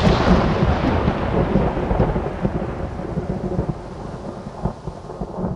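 Thunder rumbling, loud at first and slowly fading away, with a few crackling peaks along the way.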